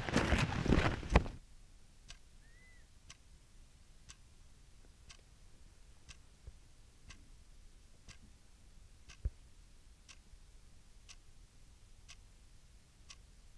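A loud crackling noise that ends with a single sharp crack about a second in, then a clock ticking faintly and evenly, about once a second.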